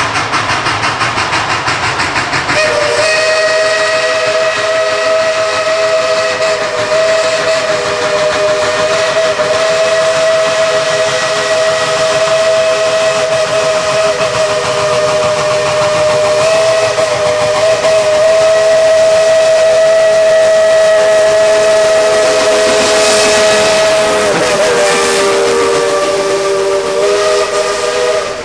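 Tweetsie Railroad #12 steam locomotive working toward the listener, its exhaust chuffing quickly for the first couple of seconds. Then its steam whistle sounds a chord of several notes in one long blast held for about 25 seconds, sagging briefly in pitch near the end, over the hiss of steam.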